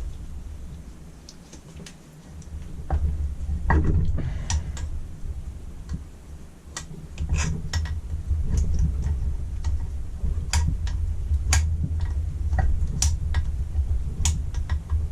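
Irregular small metal clicks and clinks of hand tools working on a Weber 32 DMTR carburettor as its adapter plate is unfastened, over a steady low rumble.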